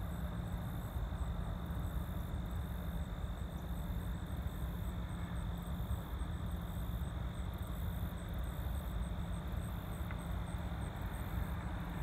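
Steady low background rumble with a faint, steady high-pitched whine above it, and no distinct event.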